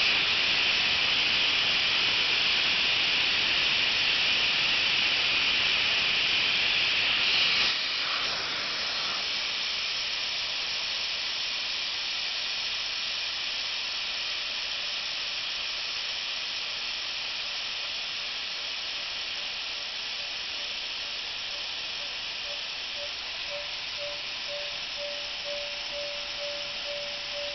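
Compressed air hissing out of an air compressor's tank as it is vented, emptying the tank's pressure. The hiss is loud at first, drops sharply about seven or eight seconds in, then goes on quieter and slowly fades, with a faint steady whistling tone coming in near the end.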